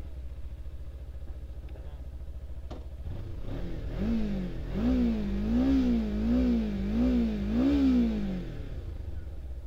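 Kawasaki Ninja 300's parallel-twin engine fast-idling at about 2,000 rpm while it warms up from cold. In the middle it is revved gently up and down about five times in an even rhythm, then settles back to the steady idle.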